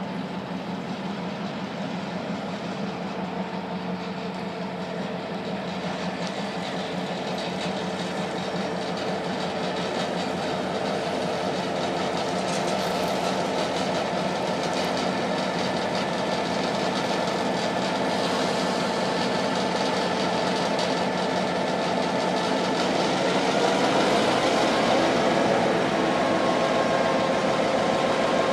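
Diesel road-switcher locomotive moving slowly with a loaded car, its engine drone growing steadily louder as it approaches, with a deeper, louder rumble coming in near the end.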